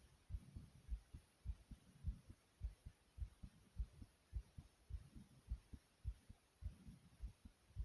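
A person's heartbeat beating fast, a little under two low thumps a second, in a steady rhythm.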